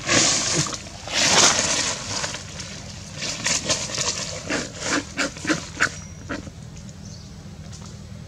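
Dry fallen leaves rustling and crackling as a long-tailed macaque shifts and moves on them: two longer rustles in the first two seconds, then a run of short, sharp crackles.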